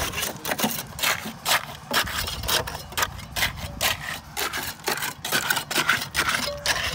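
A mason's trowel scraping and tapping wet concrete, packing and smoothing it into a wooden formwork around the rebar, in quick repeated strokes, about three a second.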